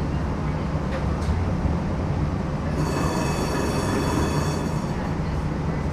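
New Orleans Canal Street streetcar rolling along with a steady low rumble; about three seconds in, its steel wheels squeal against the rails in a high ringing tone for about two seconds.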